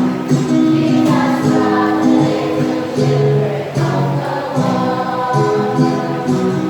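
Church choir singing a hymn with instrumental accompaniment.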